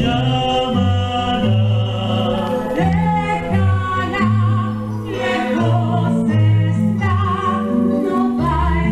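Musical-theatre song: voices singing over instrumental accompaniment with a prominent bass line.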